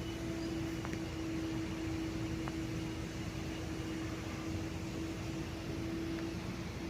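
Cosmos 56-inch (140 cm) industrial ceiling fan, model 56-CBA, running: a steady motor hum over a constant whoosh of moving air, with a couple of faint ticks.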